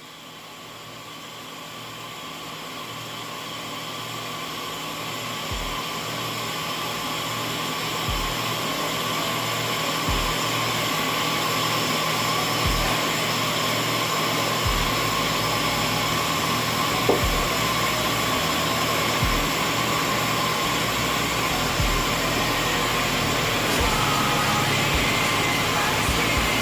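Steady machine hum and whir of wire EDM (CNC wire-cutting) machinery on a factory floor, fading up over the first several seconds. Soft low thuds recur about every two seconds.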